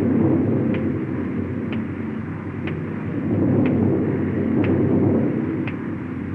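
Cartoon rainstorm sound effect: a rushing, rumbling noise that swells twice, with faint ticks about once a second, muffled on an early film soundtrack.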